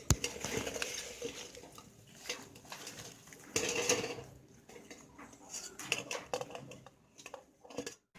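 Rabbits feeding on fresh herb leaves in their cage: irregular small clicks, rustles and light rattles, with a sharp knock at the very start and a louder patch of clatter about three and a half seconds in.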